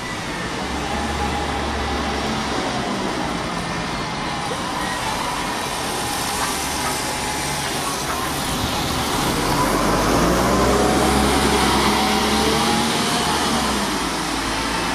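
Diesel double-decker bus engine pulling past close by in street traffic, its note rising and falling through the gears, loudest about ten seconds in.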